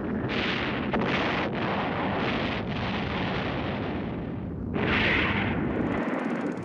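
Atlas rocket boosters exploding: a dense, continuous blast-and-rumble noise with a few abrupt edits, swelling louder about five seconds in. The blasts are failures of the booster in flight and on the pad.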